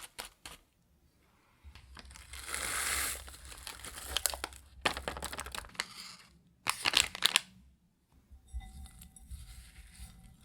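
Crinkling and rustling of something being handled in the kitchen, broken by sharp clicks. The loudest clicks come about seven seconds in, and light clinks follow near the end.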